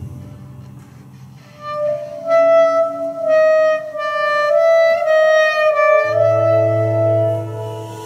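Clarinet playing a slow melody of held notes that step up and down, coming in about two seconds in. A low sustained tone joins underneath near the end.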